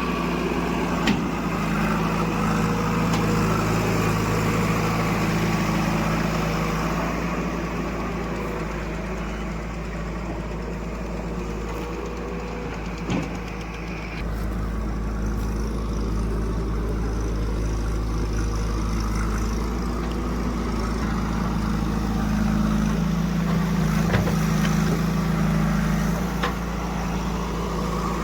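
Diesel engine of heavy farm or construction machinery running steadily at low revs, with a few brief knocks.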